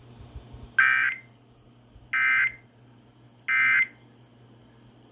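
Emergency Alert System end-of-message signal: three short bursts of data tones, evenly spaced about a second and a half apart. The bursts mark the end of the severe thunderstorm warning just broadcast.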